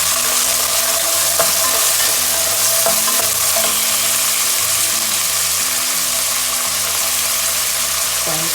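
Pomegranate arils frying in a hot oil tempering of mustard seeds, dals, cashews, ginger and green chillies: a steady sizzle, with a few sharp clicks of the pan being stirred.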